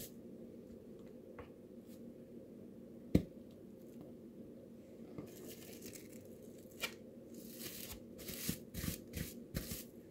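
Plastic cling wrap rustling and crinkling as it is pulled off and folded around raw meat by hand, with a single sharp knock about three seconds in and denser rustling in the second half. A faint steady low hum sits underneath.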